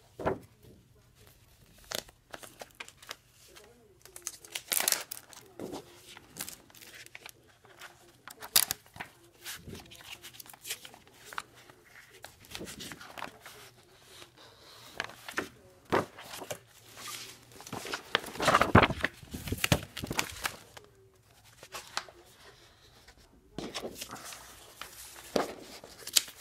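Paper sheets and a folder being handled and shuffled: irregular rustling and crinkling with sharp bursts, the loudest cluster about two-thirds of the way through.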